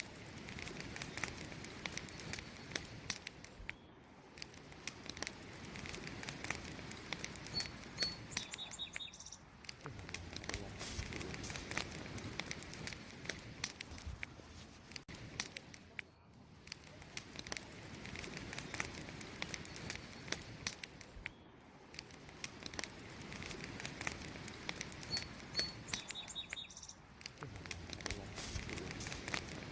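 Wood fire burning with dense, irregular crackles and pops over a steady hiss that swells and fades every few seconds. A brief high chirp is heard twice, about 8 seconds in and near the end.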